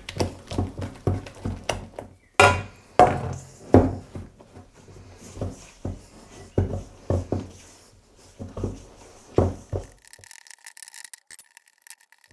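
Hands working wet flour into pizza dough in a stainless steel bowl: quick knocks and scrapes against the bowl, about three or four a second at first, then slower and irregular, stopping about ten seconds in.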